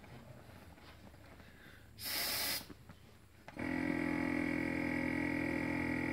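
Air suspension seat releasing a short hiss of air from its cushion about two seconds in. About three and a half seconds in, the seat's built-in 12 V compressor starts and runs steadily, pumping the air cushion back up.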